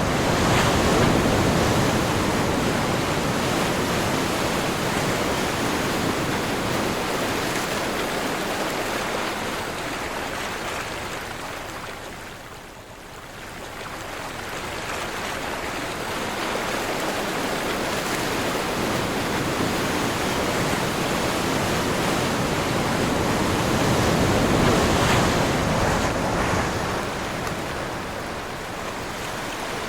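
Ocean surf washing in and out on a windy day, a steady rush of water. It swells loudest about a second in and again near the end, easing briefly in the middle.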